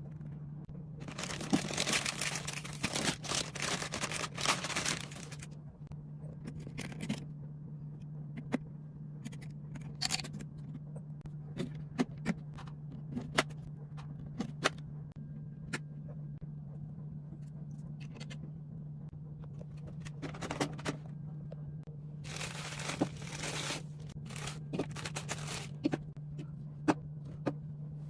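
Hands handling PC components and packaging: bursts of rustling, scraping and crinkling, with scattered sharp clicks and taps as parts are fitted, over a steady low hum.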